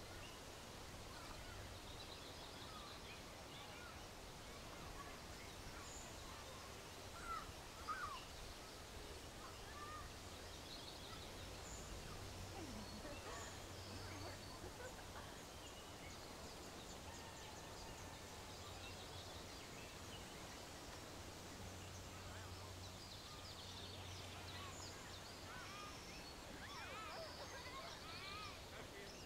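Quiet outdoor nature ambience: scattered bird chirps and short gliding calls over a faint steady hum and hiss, with a couple of louder calls about seven to eight seconds in.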